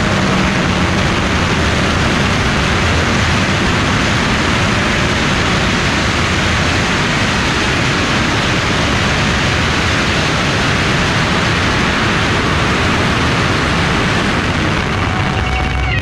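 A long carpet of red string firecrackers going off in one unbroken, dense crackle of bangs, loud and steady throughout.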